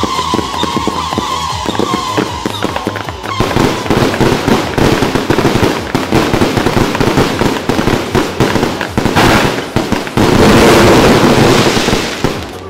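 A barrage of some 100,000 firecrackers and fireworks set off together, crackling and popping in a dense, unbroken stream. It is loudest and thickest about ten seconds in.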